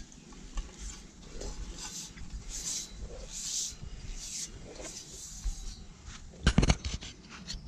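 A climber descending a coconut palm onto a metal ladder: repeated rustling and scraping of hands and feet against the trunk and coir rope, with a loud rattle of sharp knocks about six and a half seconds in.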